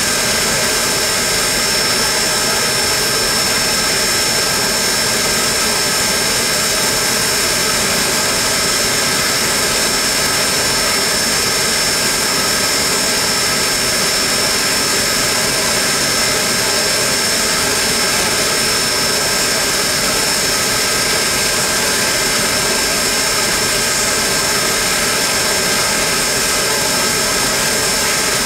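Pennsylvania Railroad B4-class 0-6-0 steam locomotive standing at idle, its escaping steam making a steady hiss with a thin steady whine on top.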